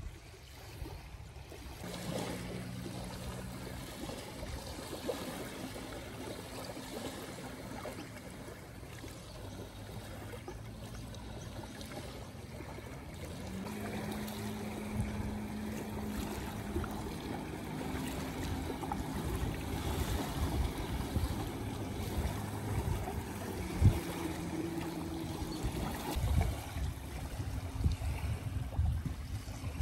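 Small waves lapping and trickling on a sandy shore, with low thumps of wind on the microphone near the end. Underneath runs a low steady hum that shifts pitch a few times.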